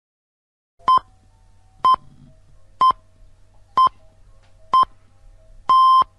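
Six-pip time signal: five short beeps about a second apart, then a longer sixth beep, all on the same pitch, over a faint low hum.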